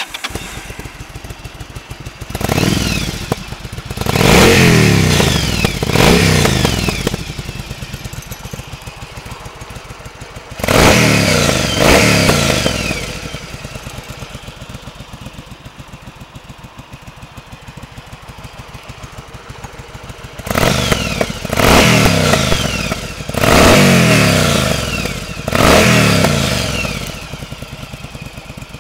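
Yamaha XVS 1100 Drag Star's air-cooled V-twin, through open Miller aftermarket exhaust pipes, starts up and idles. It is revved about nine times in three bursts, each rev climbing sharply and dropping back to idle.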